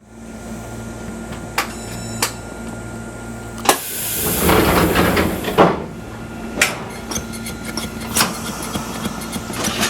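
Inside the cab of a Fukui Railway 200 series train standing still: a steady low electrical hum with scattered sharp clicks and knocks, and about four seconds in a hiss of air that swells and fades over roughly two seconds, ending in a knock.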